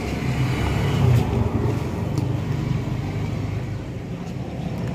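Steady low rumble of a motor vehicle engine running, swelling briefly about a second in.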